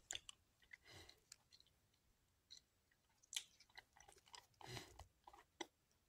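Faint mouth noises of someone sucking a cherry cough drop: a handful of soft, scattered clicks and smacks.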